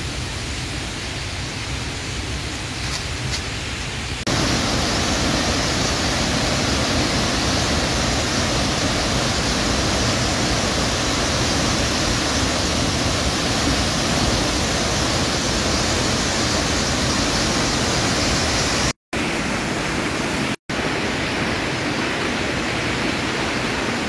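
Steady roar of a large waterfall in heavy flow, thundering into its pool. It is quieter at first and jumps louder about four seconds in. It cuts out twice for a split second near the end, and fast water keeps rushing after that.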